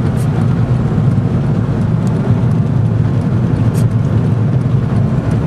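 Steady low rumble of a moving vehicle's engine and road noise, heard from inside the car.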